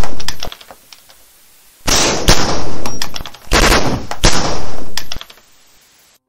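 Loud bursts of rapid, sharp bangs, each burst fading out: the tail of one at the start, then two more bursts about two and three and a half seconds in.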